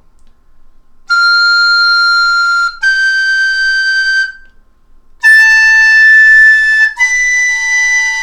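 Plastic soprano recorder playing four held notes in its high register, one after another, each higher than the last. The notes are being checked for tuning.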